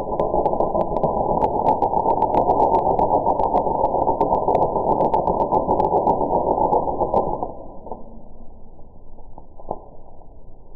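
Electric arc welding on a lawn mower driveshaft, slowed down heavily with the slow-motion footage so the arc's crackle comes out as a low, muffled, dense rush with scattered sharp clicks. About seven and a half seconds in the arc is broken off and the sound drops to a quieter hiss.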